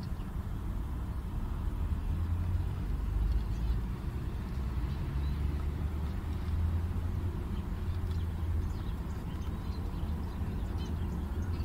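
Steady low rumble of background noise, with a few faint high chirps near the end.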